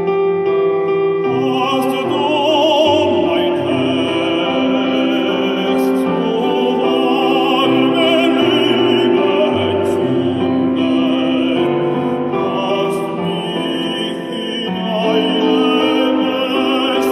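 Operatic baritone singing with wide vibrato over piano accompaniment; the piano plays alone at first and the voice comes in about a second in.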